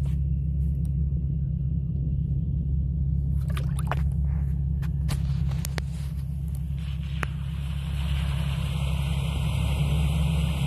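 Steady low engine rumble from an off-road vehicle fording water, with a few light clicks in the middle. About seven seconds in, a rushing hiss of water joins it as the 4x4 reaches the water.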